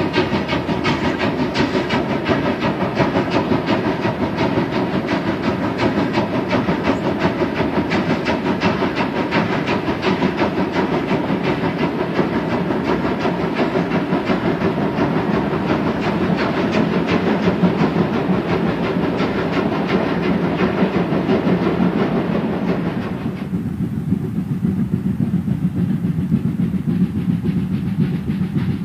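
Steam locomotive working hard as it pulls a long freight train, its exhaust beating rapidly over the rumble and clatter of wheels and wagons. About three-quarters of the way through the sound changes suddenly to a duller, more distant version of the same running train.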